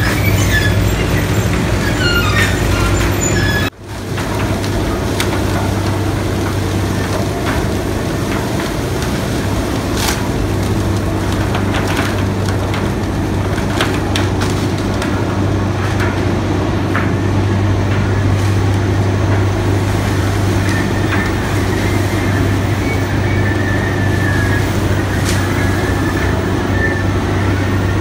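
Sugar mill cane carrier conveyor and its electric drives running: a steady loud hum with a strong low tone, scattered knocks and rattles of cane on the metal slats, and high squeaks in the first few seconds. The sound cuts out sharply for a moment about 4 s in.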